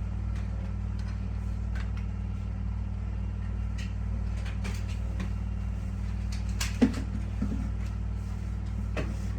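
Scattered clicks and knocks from a Nerf blaster battle, blasters firing and foam darts striking, over a steady low hum. The loudest knock comes about seven seconds in, with a smaller one just after it.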